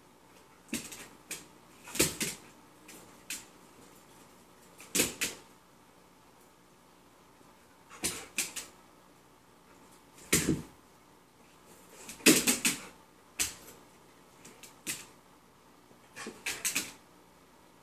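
Wire ferret cage rattling and clinking in short clusters of sharp clicks, scattered irregularly a dozen or so times, as the bars are bumped and knocked.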